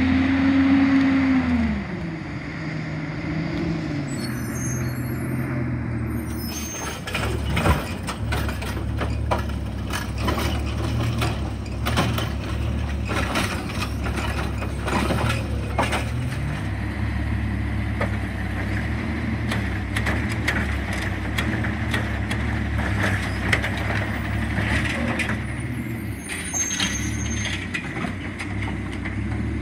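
Automated side-loader garbage truck working curbside carts: the diesel engine and hydraulics run with a tone that falls in pitch near the start, then a long stretch of clattering knocks as the arm lifts and empties a cart into the hopper, over a steady engine drone.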